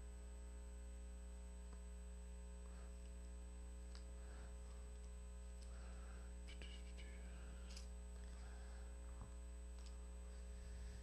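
Steady electrical mains hum, with faint rustles and ticks of Bible pages being turned while a passage is looked up.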